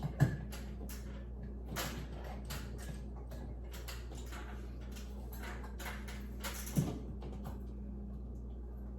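Small clicks and knocks of metal light-fixture hardware being handled while mounting screws are fitted, with a louder knock just after the start and another near 7 s, over a steady low hum. The clicking stops about 7.5 s in.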